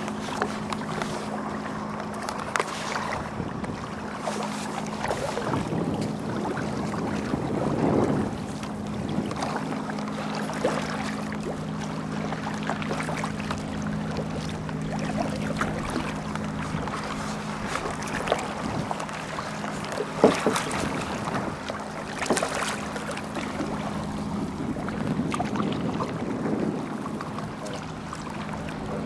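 Kayak paddle strokes: the blade dipping and splashing in the sea, with irregular splashes and drips and one louder hit about two-thirds of the way in. A steady low hum runs underneath.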